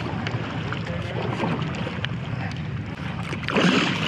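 Water sloshing against a canoe hull as the canoe is paddled through shallow water, with wind on the microphone. About three and a half seconds in, a louder wash of water comes from a paddle stroke.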